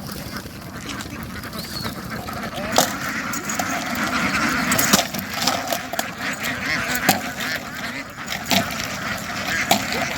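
A flock of domestic ducks quacking continuously in a dense chorus, with a few sharp knocks scattered through it.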